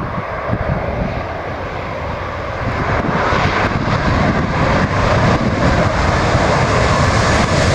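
Jet airliner engines passing close by, a steady rushing roar that grows louder from about three seconds in.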